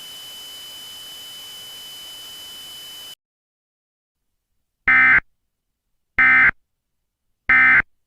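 A steady high tone over hiss that cuts off about three seconds in. After a pause come three short, identical electronic data bursts about 1.3 s apart: the Emergency Alert System end-of-message tones that close an alert.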